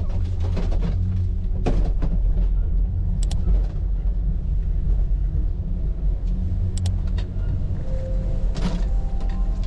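Steady low engine rumble heard from inside a moving vehicle, with a few light clicks and rattles.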